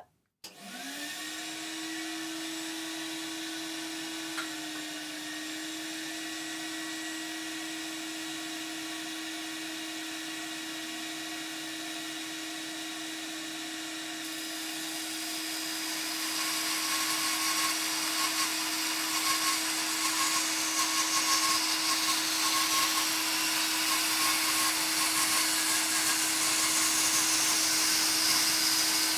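Record Power DX1000 dust extractor switched on: its motor spins up within about a second and settles into a steady whine with an even hum. About halfway through, the sound grows louder and hissier as the bandsaw starts for a rip cut and runs alongside it.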